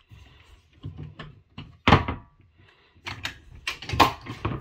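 Irregular wooden knocks and thunks as cabinet panels and boards are handled and set against each other, with two heavier thunks about two seconds in and near the end.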